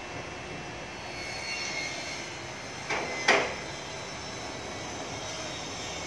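Construction-site din: a steady mechanical drone with two sharp knocks about halfway through, a few tenths of a second apart. The second knock is louder and rings briefly.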